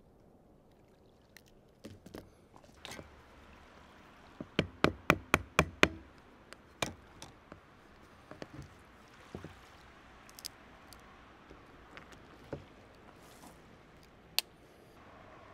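A quick run of about six sharp wooden knocks, a few a second, then scattered lighter clicks and taps: a pocket-knife blade being knocked into the end of a branch to split a slot for a saw blade.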